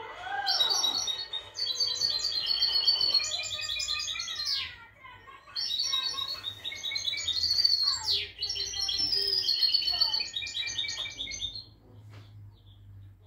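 Caged songbird singing two long, fast, twittering phrases of varied high notes, the second starting about five and a half seconds in and stopping over a second before the end.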